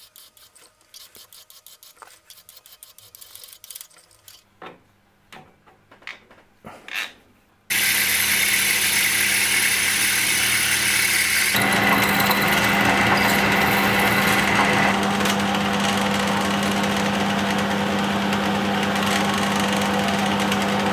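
Metal-turning lathe machining brass stock, with a twist drill boring into it: a loud, steady machine noise that starts abruptly about eight seconds in and picks up a steady low hum a few seconds later. Before that there are only faint light clicks and scrapes.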